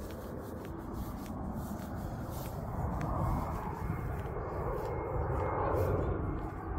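Wind rumbling on a phone's microphone outdoors. A more distant rushing, engine-like noise swells about halfway through and eases near the end.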